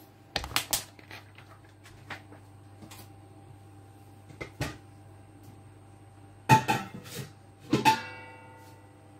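Kitchen clatter: a series of sharp knocks and clicks from things being handled and set down, loudest in a cluster about six and a half seconds in. About a second later comes a clink that rings on briefly. A low steady hum runs underneath.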